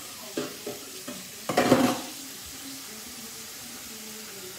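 Kitchen cookware and utensils being handled: a couple of light knocks, then a louder clatter about one and a half seconds in, over a faint steady hiss.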